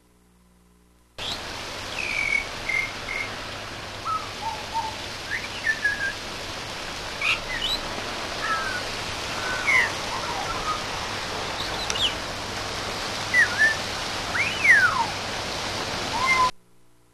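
Pied butcherbird calling in short, varied whistles and chirps, several sliding up or down in pitch, over a steady hiss of rain. It starts about a second in and cuts off suddenly near the end.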